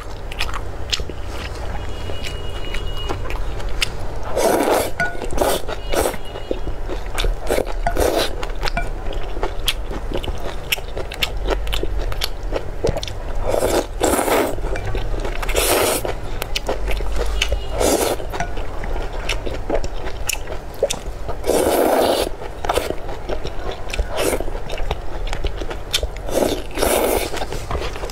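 Close-miked eating: a person slurps noodles and chews wet, spicy food, with soft mouth clicks throughout and about six louder slurps.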